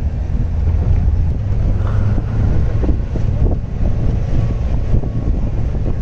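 Open-top safari jeep driving along a dirt forest track: steady engine and tyre rumble, with wind buffeting the microphone.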